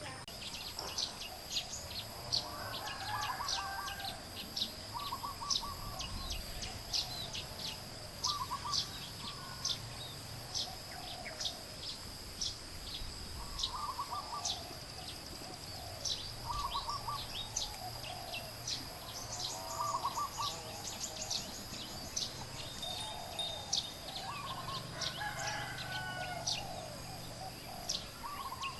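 Chickens calling in short, pulsed bursts every second or two, over many quick high chirps from small birds or chicks and a steady high-pitched insect-like whine.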